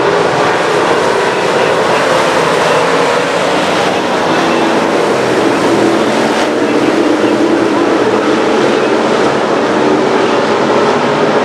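Street stock race cars running on the track together, a loud, steady drone of several engines at speed.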